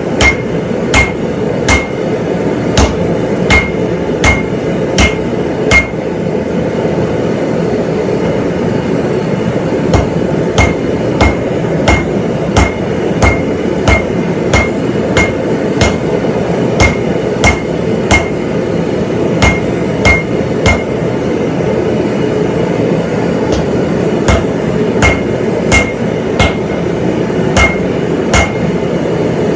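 Hand hammer striking hot steel on an anvil, nearly two blows a second in runs with short pauses, each blow leaving a brief ringing note. Under it runs the forge's steady rushing noise.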